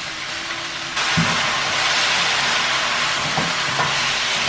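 Vegetables sizzling as they are stir-fried in a hot pan with sauce, the hiss jumping louder about a second in and staying loud, with a few light knocks of the utensil against the pan.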